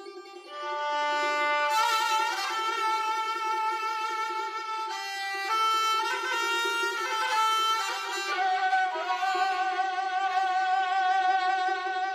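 Background music: a melody of long held notes with slight vibrato over a steady drone note.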